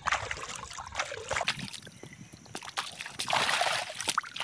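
Hands sloshing and splashing in shallow water while washing, in several separate bursts; the longest and loudest comes about three seconds in and lasts nearly a second.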